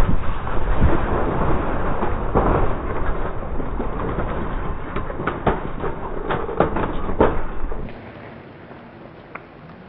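Rumble just after the blasting of a concrete road bridge, with chunks of concrete debris landing in a string of sharp knocks and cracks. About eight seconds in, it drops to a faint hiss.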